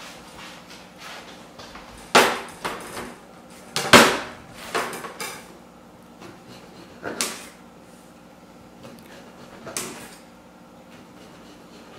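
A few sharp knocks and clunks on a kitchen countertop, the loudest about four seconds in, as cooked acorn squash are set down and cut with a kitchen knife.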